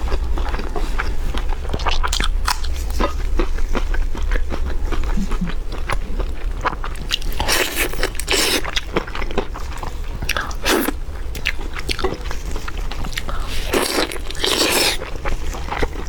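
Crisp food crunching in a run of short sharp clicks, with several longer, louder crunches in the second half, over a steady low hum.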